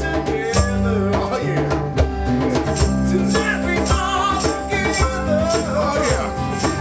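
Band recording playing: drums, bass and guitar, with a voice singing over them.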